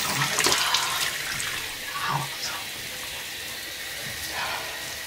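Water running from a sink tap into the basin, louder in about the first second, then a steadier, softer flow.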